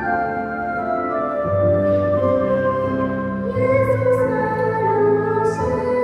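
Slow music: a singing voice carries a melody over sustained keyboard chords, with the voice growing stronger about halfway through.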